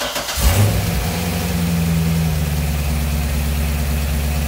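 Chevrolet Corvette C6 Z06's 7.0 L LS7 V8 starting: a brief crank, catching about half a second in with a short flare, then settling into a steady idle. Its exhaust valves are probably held wide open, their fuse pulled.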